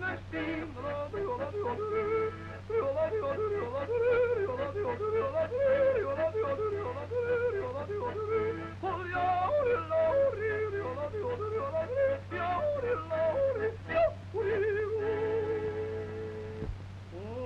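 A singer yodeling, the voice flipping quickly between low and high notes with vibrato on the held notes, over a steady low hum from the old sound-film track.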